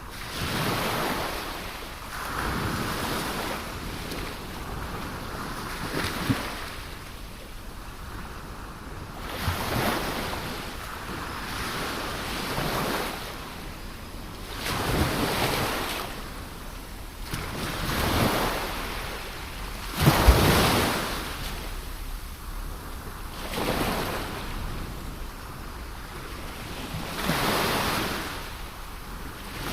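Ocean waves breaking and washing on a shore. Each wave surges and fades, about ten in all, and the loudest crashes about twenty seconds in.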